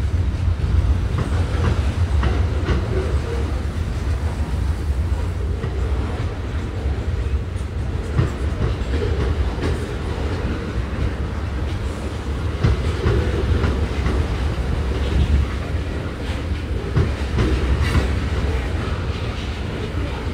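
Freight train rolling past close by: a steady low rumble with scattered clicks of wheels over the rail.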